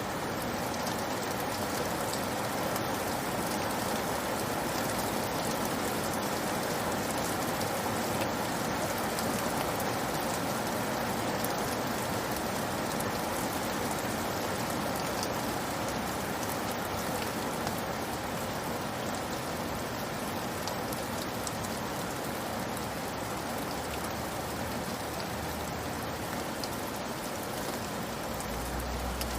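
Steady rain falling, an even hiss of many drops on surfaces with no let-up.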